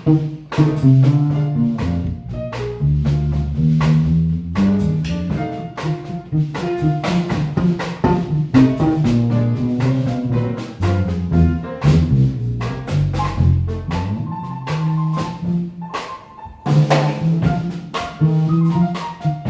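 Jazz trio playing: piano notes and chords over a bass line, with a drum kit striking steadily throughout. The playing dips briefly a few seconds before the end, then comes back in.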